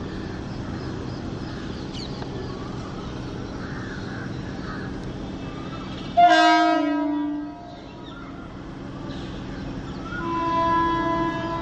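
Steady rumble of an approaching Indian Railways electric locomotive and its train. About six seconds in comes a sudden, loud horn blast of a little over a second, with several tones at once, and about four seconds later a second, softer horn sounds near the end.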